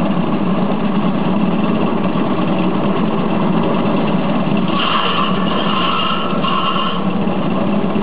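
Small engine running steadily, driving a groundnut thresher while groundnut plants are fed into it. A higher layer of noise comes and goes in the second half.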